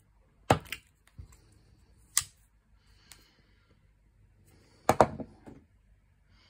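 Clicks and knocks of a vintage folding pocket knife with brass bolsters being handled and closed, with a sharp click about two seconds in. About five seconds in a short cluster of knocks as the closed knife is set down on a wooden tabletop.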